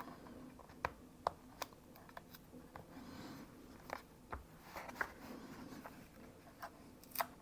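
Faint handling noise with scattered small clicks and taps, about a dozen in all, as a small part is pushed and tried in place on a MacBook Air and will not fit.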